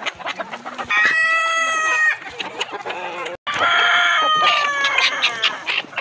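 Domestic roosters crowing twice, one crow about a second in and a longer one from just past the middle, with hens clucking in between.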